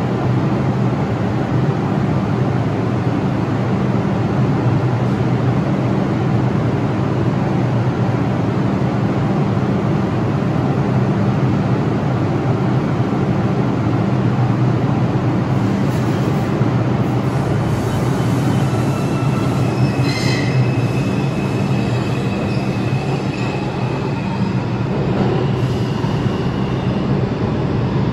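New York City subway train running, with a steady loud rumble and rail noise. In the second half, high thin wheel squeal comes and goes.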